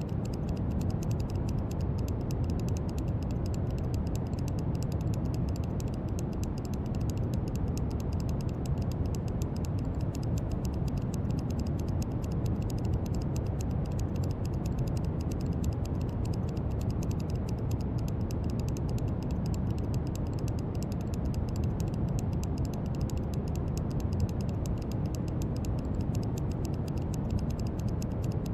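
Brown noise: a steady, deep rushing hiss, heaviest in the low end, with no change in level.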